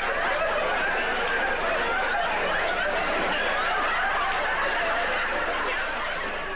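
A studio audience laughing hard and without a break, many voices at once, fading near the end.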